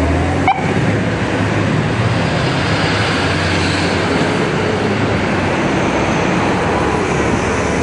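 Fire apparatus engines pulling away in street traffic: a steady low diesel rumble under road noise, with a short rising chirp about half a second in.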